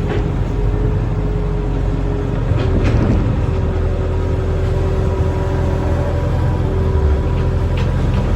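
Barge-mounted excavator's engine running steadily under load, with a steady hydraulic whine above it and a few short knocks, the clearest about three seconds in.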